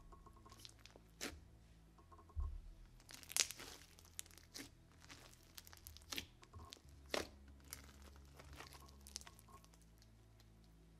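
Thick white slime studded with foam beads being stretched, folded and squeezed by hand, giving faint scattered crackles and pops. The loudest crackle comes about three and a half seconds in, another about seven seconds in.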